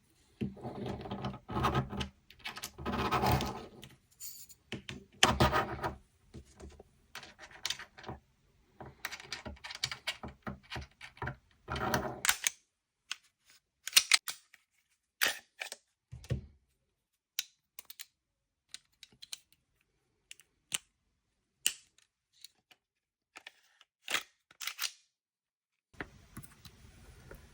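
Glock 19 pistol being handled and cycled: rattling and sliding handling noise for the first dozen seconds or so, then a run of separate sharp metallic clicks and snaps from the slide and action.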